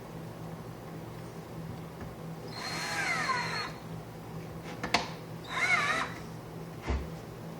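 Small cordless electric screwdriver driving a screw in two short bursts, its motor whine dropping and wavering in pitch as the screw bites. A couple of sharp clicks follow between the bursts and after them.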